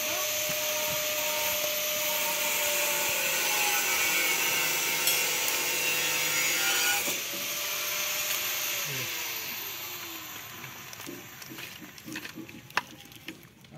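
A steady machine whir with a faint hum in it, which dies away after about seven seconds with a falling pitch. Near the end, a clear plastic packet crinkles as a new oil seal is handled in it.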